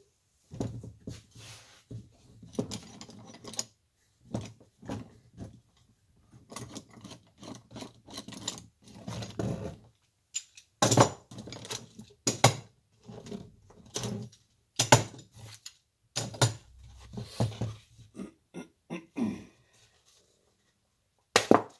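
Steel screw-down bench clamps being unscrewed and lifted off glued-up pallet-wood blanks on a wooden workbench. Irregular metal clanks and wooden knocks come as the clamp parts and blocks are handled and set down, with several sharp louder knocks in the second half.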